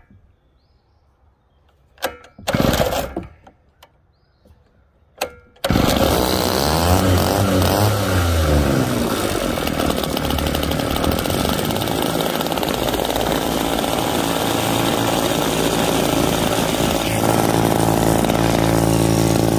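Primed 1964 Partner K12 90cc two-stroke cut-off saw being pull-started: a few short bursts on the first pulls, then the engine catches about six seconds in and keeps running, revving up and down for a few seconds before settling into a steady run.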